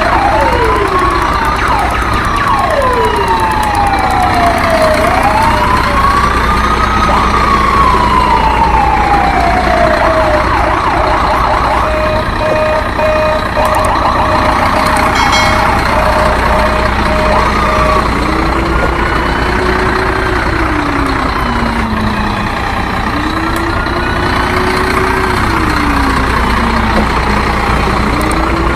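Siren wails, several slow rising-and-falling glides overlapping, over a steady low engine-like hum. A rapid run of short beeps on one pitch comes in near the middle. The sirens drop lower in pitch in the second half.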